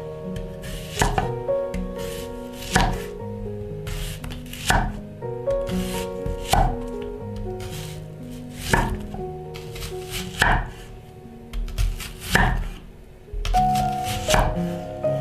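Chef's knife slicing a whole onion into rings on a wooden cutting board. Each cut ends in a crisp knock on the board, about one every two seconds, coming quicker near the end, over background music.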